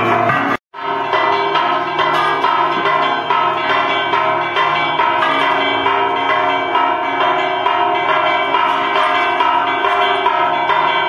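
Church bells ringing steadily, a dense mix of overlapping bell tones, after a brief break just under a second in.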